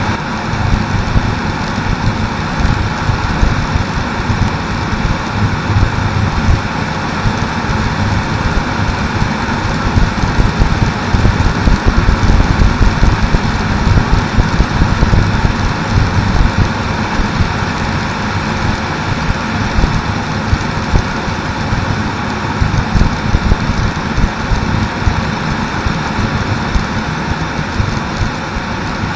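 Cordouan HM1100 ultralight's engine and propeller droning steadily in flight, heard from a wing-mounted camera, with heavy wind buffeting on the microphone.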